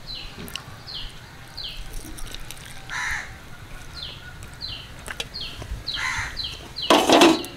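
Crows cawing, a few harsh caws with the loudest near the end. Under them a small bird chirps over and over, each chirp a short high falling note.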